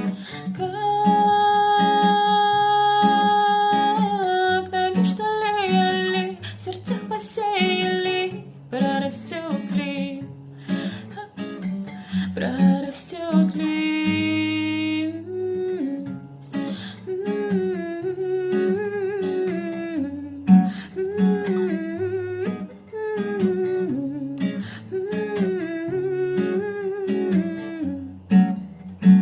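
Music: a voice singing and humming a melody in long held notes over an acoustic guitar accompaniment.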